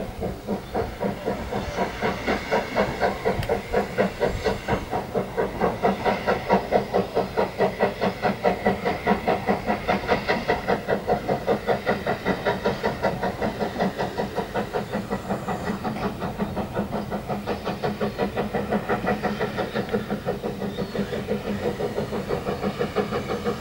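Narrow-gauge steam locomotive of the Ffestiniog Railway chuffing as it hauls its train away, a rapid, even exhaust beat of about four puffs a second, easing slightly in the second half.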